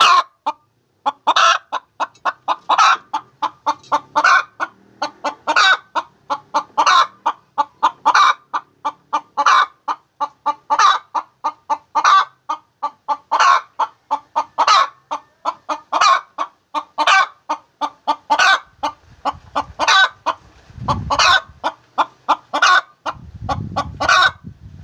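Domestic hen cackling its egg song: runs of short clucks building into a louder drawn-out call, repeating about every second and a half, the call hens give around laying an egg.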